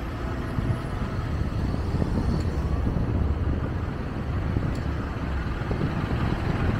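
A car driving along a road: a steady low rumble of engine and tyre noise, growing slightly louder toward the end.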